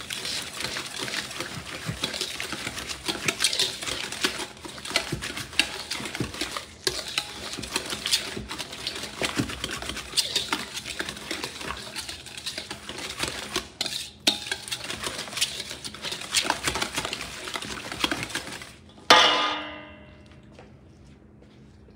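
Wire whisk scraping and clicking fast against a stainless steel mixing bowl while beating a thick mayonnaise dressing. Near the end, a single loud metallic clang as the bowl is struck and rings briefly, then the whisking stops.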